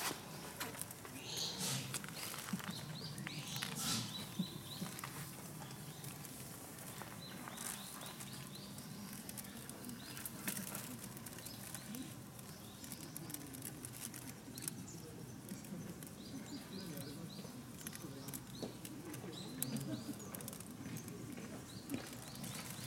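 Quiet outdoor ambience: small birds chirping in short quick runs now and then, with light rustling and soft taps.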